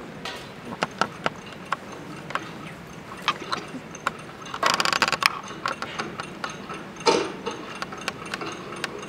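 Scattered light knocks and clinks of glassware and small objects being handled and set down on a wooden table, with a short clattering rattle about halfway through.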